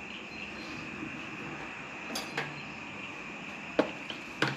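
A few short clinks and knocks of kitchen utensils and dishes being handled, over a steady background hiss.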